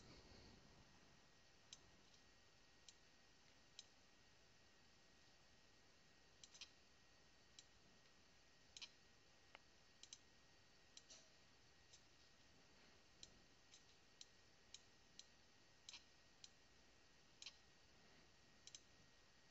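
Computer mouse clicking: about twenty short, faint clicks at irregular spacing, some in quick pairs like double-clicks, over near silence.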